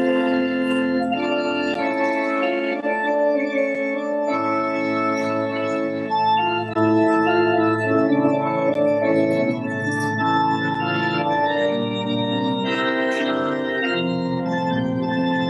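Organ playing slow music in held chords that change every few seconds.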